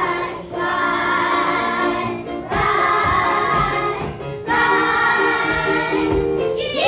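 A group of children singing together with instrumental accompaniment, in long held phrases that break briefly about two and a half and four and a half seconds in.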